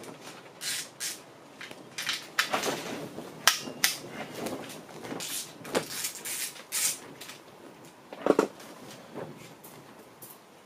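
Irregular metallic clinks, clicks and rattles of a Honda K24A timing chain and hand tools being handled as the chain is worked off its sprockets, with a couple of sharper knocks, one about a third of the way in and one near the end.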